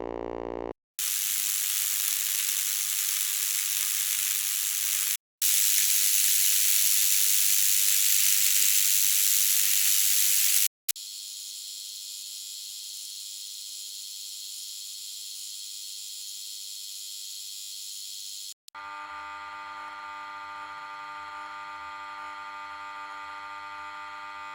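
A run of separate steady electrical buzz and hum sound effects, each several seconds long and cut off abruptly: two high hissing buzzes, then a thin steady buzz of many fixed tones, then a fuller hum with a deep steady drone.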